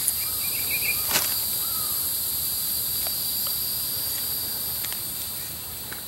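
Steady high-pitched chorus of summer insects in woodland, with one sharp snap about a second in and a few faint short chirps.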